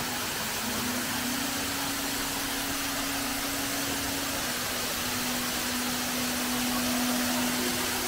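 Steady rush of falling water from a waterfall. Over it runs a steady low hum that shifts slightly in pitch twice and stops near the end.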